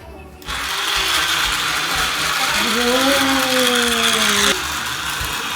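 Motorised toy train running on its track with a loud, steady mechanical gear rattle, which drops in level near the end.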